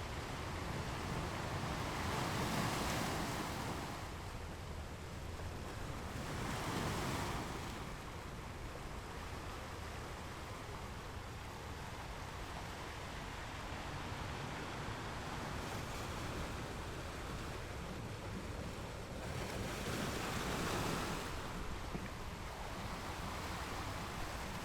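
Ocean waves breaking on rocks over a steady wash of surf, with three louder breakers: about two seconds in, about six seconds in, and about twenty seconds in.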